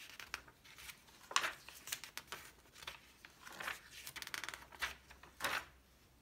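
Magazine pages being turned by hand: a series of short paper rustles and swishes, the loudest about a second and a half in.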